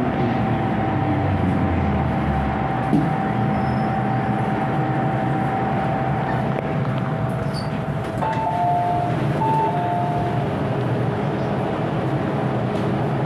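MTR M-Train electric multiple unit running, heard from inside the passenger car: a steady rumble of wheels and traction gear with a held motor whine. About eight seconds in, two short high tones sound one after the other.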